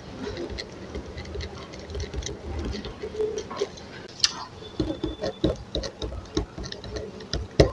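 Ballpoint pen writing and ticking off items on sticky notes on a desk: irregular scratching strokes and light taps, with a sharp click about four seconds in and a louder knock near the end.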